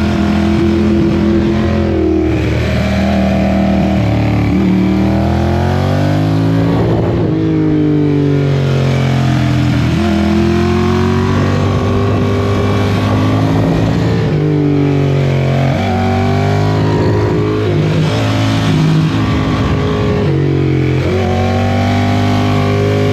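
Vehicle engine revved up and down repeatedly through its exhaust, the pitch climbing and falling every few seconds between steadier held revs.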